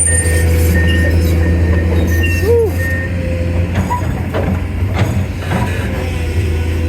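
Hired excavator's diesel engine running close by with a steady drone, and short high beeps repeating evenly through the first three seconds, with a few knocks along the way.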